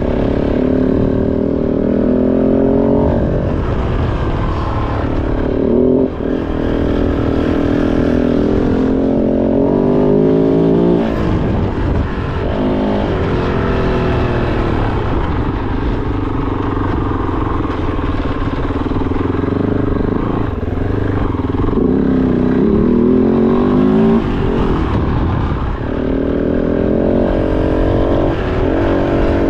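Kove 450 Rally's single-cylinder engine running under way off-road, its revs rising and falling over and over with throttle and gear changes.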